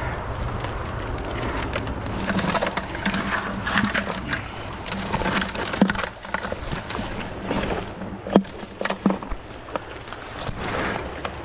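Dry brush and twigs crackling and snapping as someone pushes through a dense thicket, a busy run of small cracks for the first half, then a few separate louder snaps near the end.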